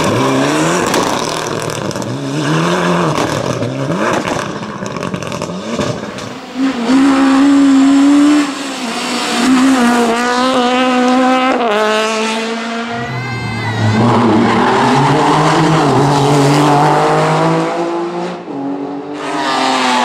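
Rally car engines at full throttle, revving hard and climbing through the gears with the pitch dropping at each shift, with tyre squeal. The cars come one after another: first a turbocharged four-cylinder Mitsubishi Lancer Evolution X, then a Citroën Saxo.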